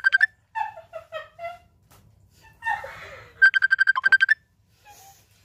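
Women giggling and chuckling with mouths full of banana. Twice, a quick run of rapid identical high beeps, about ten a second, cuts in; these are louder than the laughter.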